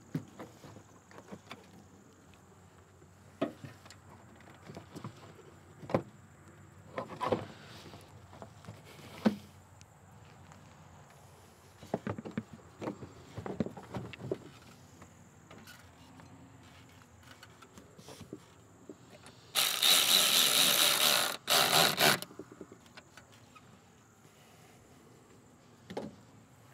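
Scattered clicks and knocks of a plastic air intake hose and its clamps being fitted by hand at the throttle body. About twenty seconds in, a small cordless power tool runs loudly for about two and a half seconds, with a brief stop partway, tightening a hose clamp.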